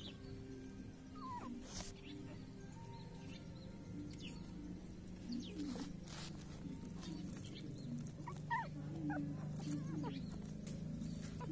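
Puppies whimpering in short, high cries, with several in quick succession about eight seconds in.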